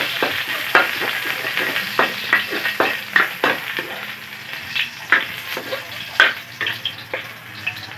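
Garlic sizzling as it is sautéed in a wok, with a spatula scraping and knocking against the pan about two or three times a second. The sizzle grows gradually quieter.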